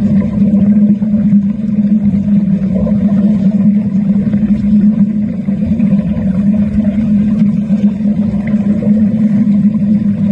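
Underwater arc welding: a loud, steady low hum with a rough crackle over it.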